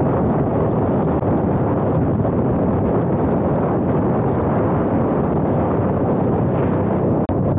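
Steady wind rushing over a helmet-camera microphone on a motorcycle moving at road speed, with the motorcycle's engine running underneath. A brief dropout with a sharp click comes near the end.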